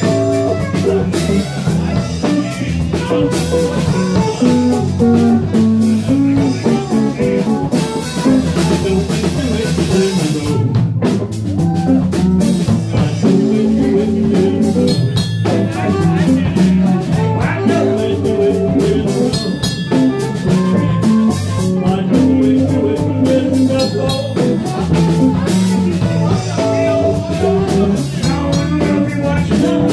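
Live band jamming: guitar, electric bass and drum kit playing together at a steady beat, with a walking low bass line under the guitar.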